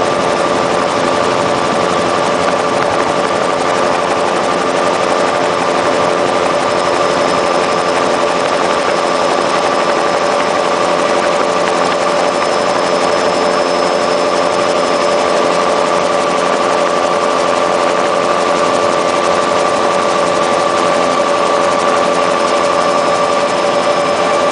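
OH-58 Kiowa helicopter in flight, its turbine and rotor running at a constant steady pitch: an even hum with a higher whine over a wash of noise, unchanging throughout.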